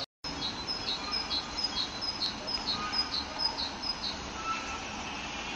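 A small songbird singing a high two-part phrase, a note dropping to a lower one, repeated about twice a second until about four seconds in. The sound cuts out briefly at the very start.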